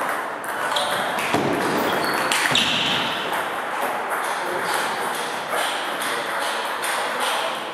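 Table tennis ball clicking sharply off the bats and table in a rally early on, then scattered lighter ball clicks, in a large gym hall.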